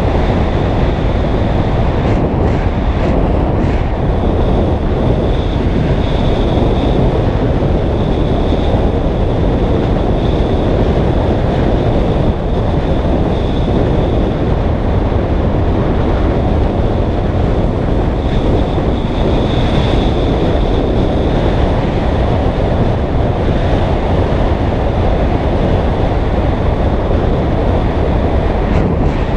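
Steady, loud wind noise on the microphone of a triathlon bike descending at speed. A faint high whine swells and fades through it.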